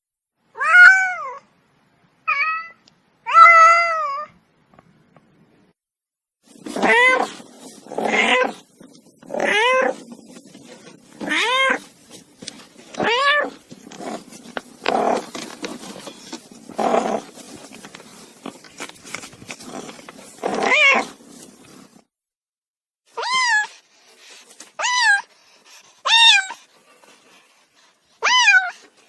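Domestic cat yowling in a string of drawn-out meows, each rising and then falling in pitch, the cries of an angry cat. Through the middle stretch the calls come faster, about one every one and a half seconds, over a rough, noisy undertone; after a short gap a few more single calls follow near the end.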